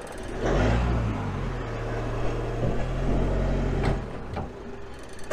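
Pickup truck's engine pulling under light throttle as it reverses slowly up to a caravan hitch, a steady note that swells about half a second in and eases off near four seconds.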